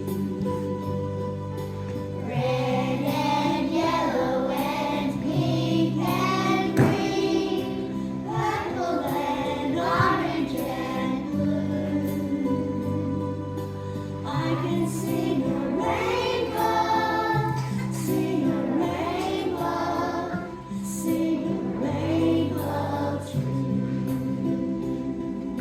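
Children singing a song together over a backing track with a steady bass line.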